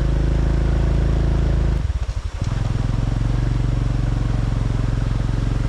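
Vehicle engine running steadily with a low drone, which wavers and dips briefly about two seconds in before settling again.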